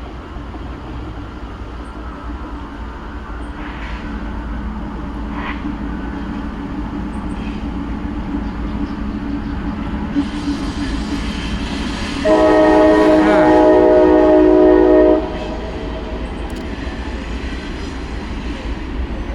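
CSX freight train's diesel locomotives approaching, their rumble growing steadily louder. About twelve seconds in, the lead locomotive sounds its air horn in one chord held about three seconds.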